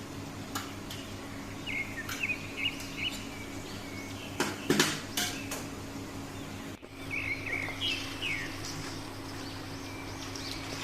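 Birds chirping in short gliding calls, with a quick cluster of sharp clinks about halfway through, over a steady low hum.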